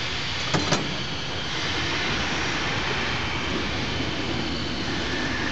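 Heritage train rolling slowly along the track, heard from the rear balcony of the last carriage: a steady running noise, with two sharp clicks close together about half a second in.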